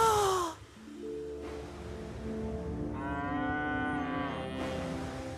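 Background music of low held notes, with a cow mooing once for about a second and a half, about three seconds in. It opens with a short, loud, falling pitched cry that cuts off half a second in.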